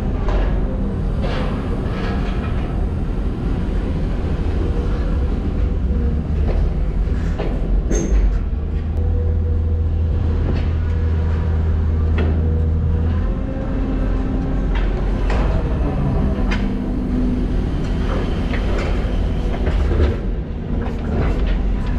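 Heavy diesel construction machinery running under load, a steady low engine drone that grows heavier for several seconds midway, with a wavering hydraulic tone and repeated metallic knocks and clanks.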